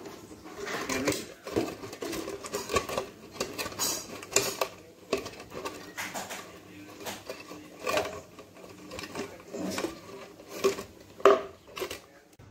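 Thin plastic water bottle crinkling and clicking as it is handled and a cord is tied through holes in it, in irregular bursts with a sharper crack near the end.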